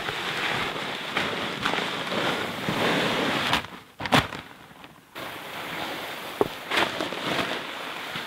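Pea gravel poured out of a bag onto the ground, a rushing rattle of small stones. It stops briefly about three and a half seconds in, with one sharp knock in the pause, then starts again with a few clicks.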